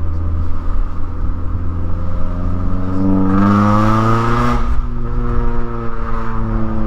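Straight-piped exhaust of a 2009 Mazda3's 2.3-litre four-cylinder running under a steady low drone. About halfway through the revs climb for a couple of seconds, turn loud and raspy, then drop away, and they rise and fall once more near the end.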